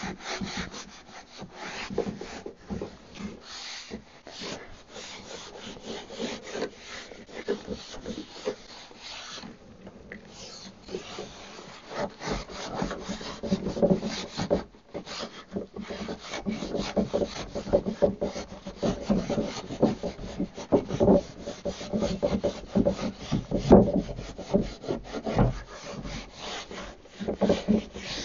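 Damp cloth rubbing and wiping over the sanded wood of a cabinet in quick, irregular strokes, with brief pauses between passes.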